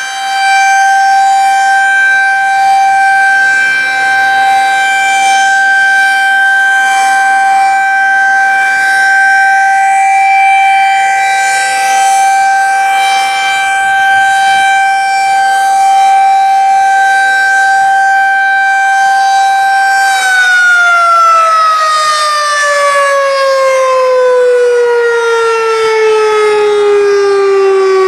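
Federal Signal 2001-SRN rotating electromechanical tornado siren sounding its steady, unusually high-pitched alert tone, then winding down in a long falling glide after about twenty seconds as the signal ends.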